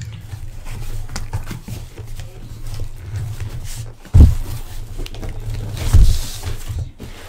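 A cardboard shipping case full of trading-card hobby boxes being handled, lifted and set down on a table: cardboard scraping and rustling over a low rumble, with two heavy thumps about four and six seconds in.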